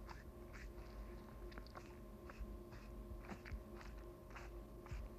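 Needle and strong thread being pushed and drawn through a fox pelt to sew up a cut: faint, irregular scratchy ticks, about two a second, over a steady hum.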